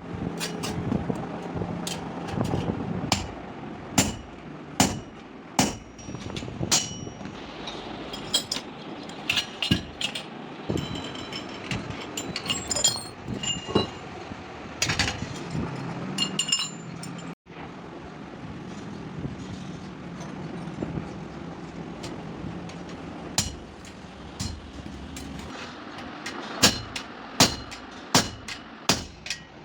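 Repeated sharp knocks and clinks of metal tools striking metal parts, some with a short high ring, over a steady low background hum.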